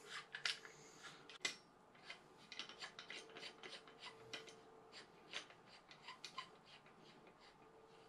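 Faint, irregular clicking and scraping of a handheld rotary tubing cutter being fitted onto and worked around a thin brass drain overflow pipe.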